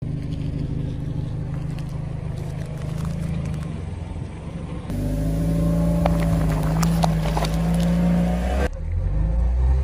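A car's engine running slowly as its tyre rolls over objects on asphalt, with scattered crackles and crunches of things being crushed, most of them in the middle stretch. The sound changes abruptly twice as one crush clip gives way to the next.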